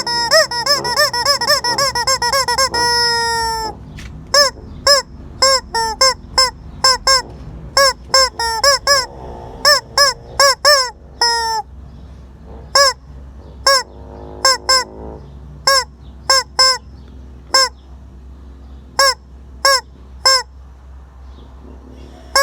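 Rubber squeaky chicken toy squawking as it is squeezed: a fast run of short, arching honk-like squeaks, one longer held squawk about three seconds in, then single squawks spaced out with short pauses.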